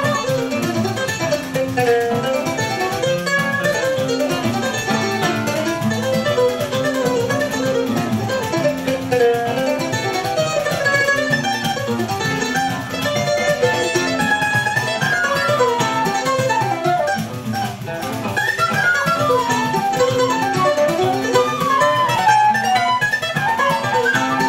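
Choro music played live: a mandolin picking a quick running melody over acoustic guitar accompaniment.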